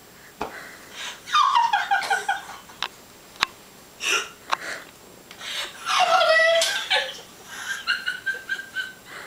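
Girls laughing hard in several bursts of high-pitched giggling, with a few sharp clicks in between.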